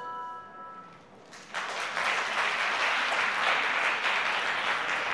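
The last ringing notes of the music fade away, then about a second and a half in an audience starts applauding, with steady clapping from then on.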